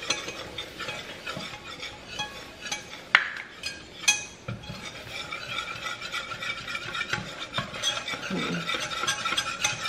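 Wire whisk stirring flour into melted butter in a saucepan as a roux comes together, its wires scraping and clicking against the pan. Two sharp clinks stand out about three and four seconds in.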